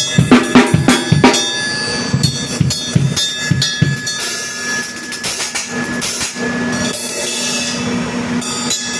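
Drum kit played in a sound check: a quick run of drum hits for about four seconds, then cymbals washing with only a few hits. A steady tone is held underneath.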